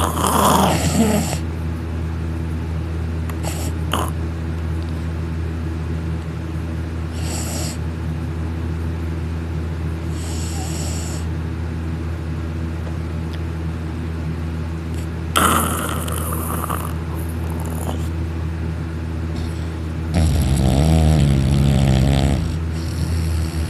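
Young man snoring heavily in a deep sleep brought on by sleeping pills: loud rasping snores a few seconds apart, the loudest a long rattling snore near the end, over a steady low hum.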